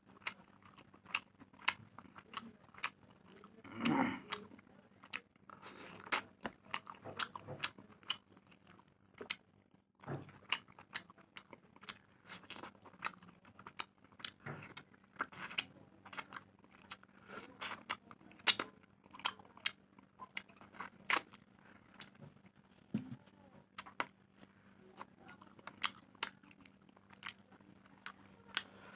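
A person chewing and eating close to the microphone, with many sharp wet mouth clicks and crunches and a louder burst about four seconds in.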